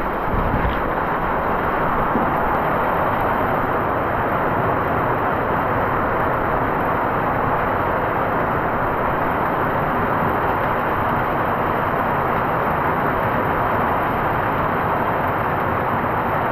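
Steady shower of rain falling, an even hiss that holds at the same loudness throughout.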